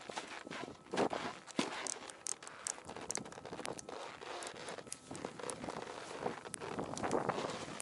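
Snowboard bindings being strapped in: scattered sharp clicks of the ratchet straps over rustling of jacket fabric and snow as the rider shifts on the ground.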